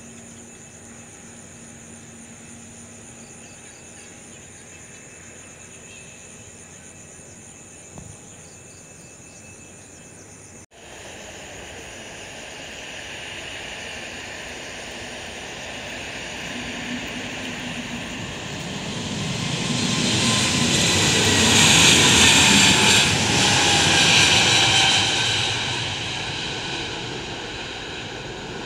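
Airbus A320 jet engines at takeoff power during the takeoff roll. After a faint steady hum, the engine noise swells from about eleven seconds in and is loudest a little past halfway, with a whine falling in pitch as the plane passes, then eases slightly as it lifts off.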